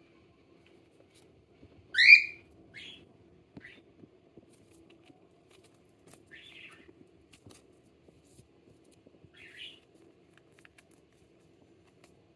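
Cockatiel calling: one loud, rising chirp about two seconds in, then four softer short calls spread over the following seconds.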